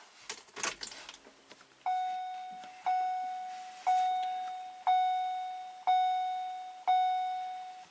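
Vehicle dashboard warning chime sounding six times, about one chime a second, each a clear electronic tone that fades away, after a few faint clicks. No engine is running: the van has stalled.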